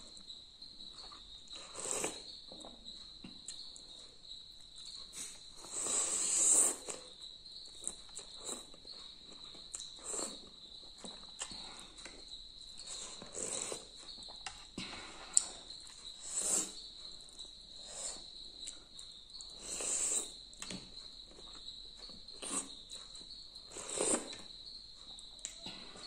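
Slurping and chewing of noodle soup (thukpa) eaten with a fork and spoon, in short bursts every few seconds, with one sharp click about halfway through. A steady high-pitched tone sits behind it.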